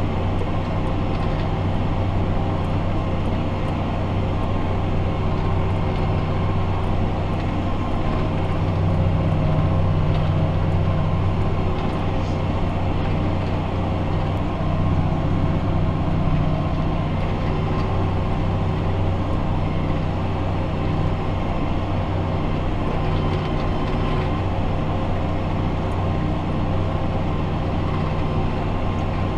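Fendt 828 Vario tractor's six-cylinder diesel heard from inside the closed cab, running with a steady low drone while pulling a compost spreader across the field, swelling slightly a few times.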